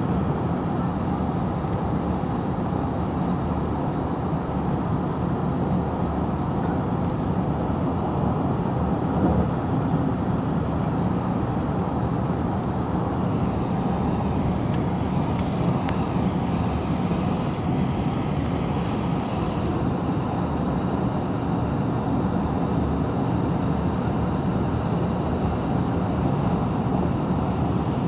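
Steady road noise of a car driving at highway speed, heard from inside the cabin: an even rumble of tyres and engine.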